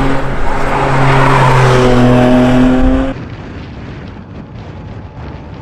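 Porsche 718 Cayman GT4 RS's naturally aspirated 4.0-litre flat-six running loud at high revs on track, its pitch holding and then rising slightly, with rushing tyre and wind noise. About three seconds in it drops abruptly to a much quieter rushing sound.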